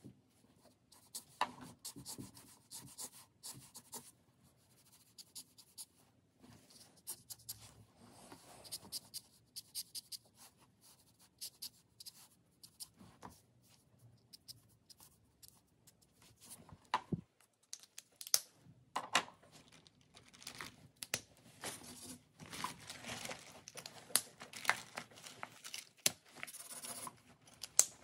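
Felt-tip marker scratching across paper in quick hatching strokes: short rapid scratches in bursts with pauses between. The strokes come much thicker and faster in the last third.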